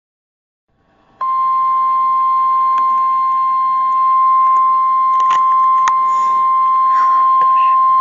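NOAA Weather Radio warning alarm tone: one steady high tone that starts about a second in and holds, announcing a Special Marine Warning broadcast.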